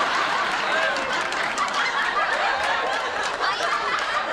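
Sitcom studio audience laughing, many voices at once at a steady level, in response to a punchline.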